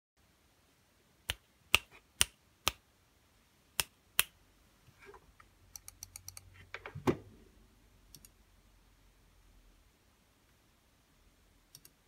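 Desk gear being handled around a mechanical keyboard: six separate sharp clicks over about three seconds, then a flurry of small light clicks ending in one dull thump about seven seconds in.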